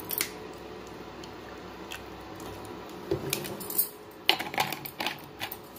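Sharp clinks and taps of steel kitchenware: a few scattered ones, then a quicker run of them from about three seconds in.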